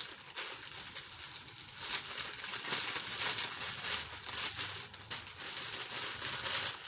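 Continuous crinkling rustle with many small crackles as a T-shirt is handled and brought out to be shown.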